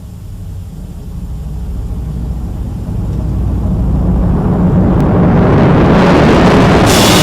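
A deep rumble swelling steadily louder and brighter, like a building roar. Music with held tones comes in near the end.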